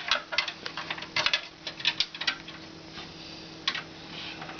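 Small sharp clicks and taps in quick clusters as parts are handled in a desktop PC case: the slot plate and thumb screws of a graphics card being fitted. The clicks come thick for about two and a half seconds, then stop, with one more near the end.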